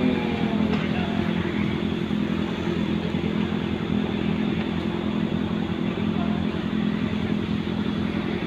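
Kawasaki ZX25R inline-four with an R9 aftermarket exhaust idling steadily, its revs falling back to idle in the first moment.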